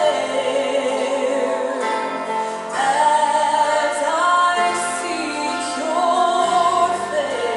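A worship song playing, a woman singing long held notes over instrumental backing.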